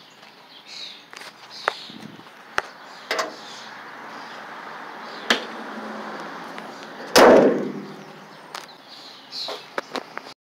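Handling noise from a phone camera being swung about: scattered clicks and knocks over a steady outdoor hiss, with one loud thump about seven seconds in.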